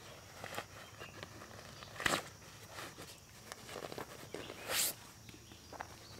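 Footsteps on dry forest leaf litter, irregular scuffs and clicks, with a sharp click about two seconds in and a louder brief rustle near five seconds.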